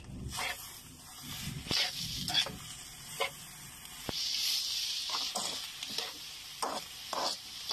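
Spatula scraping and stirring grated coconut with brown sugar in a hot wok, a stroke every second or so, as the bukayo (coconut candy) mixture cooks. A steady sizzle sets in about four seconds in.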